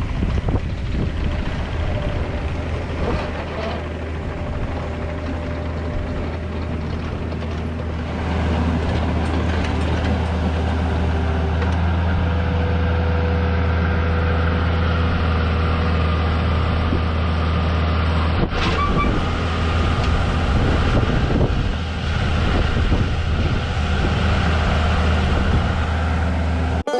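Tractor engine running steadily while working, its engine picking up speed about eight seconds in, with an occasional knock.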